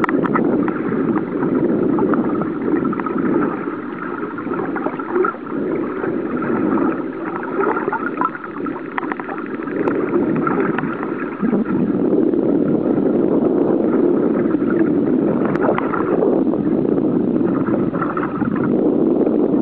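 Muffled underwater water noise from a camera held in the sea: a steady gurgling rush of water against the camera, with many small scattered clicks.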